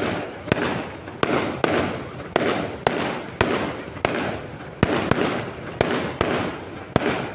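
Fireworks going off in a rapid series, about two sharp bangs a second, each followed by a brief crackling hiss.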